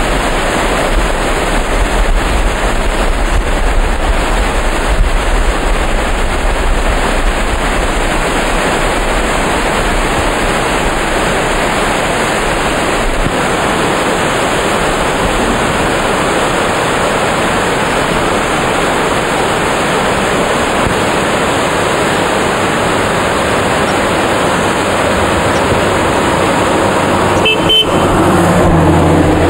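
Waterfalls cascading over rocks into pools: a steady, loud rush of water. Near the end the sound changes abruptly and a low steady hum comes in under it.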